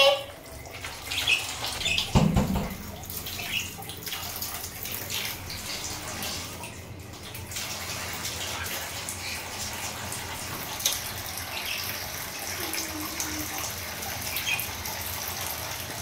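Steady running, splashing water for the budgies' bath, with a low thump about two seconds in and a few faint short high peeps.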